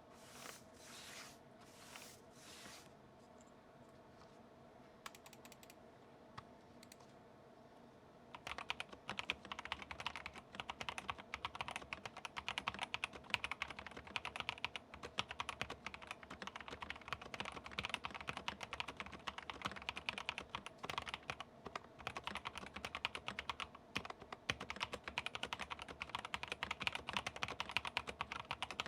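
Epomaker Shadow X mechanical keyboard, stock, with Epomaker Bluebird switches, a polycarbonate plate and PBT double-shot keycaps, being typed on. A few soft knocks come at the start, then a quiet stretch, and fast continuous typing begins about eight seconds in.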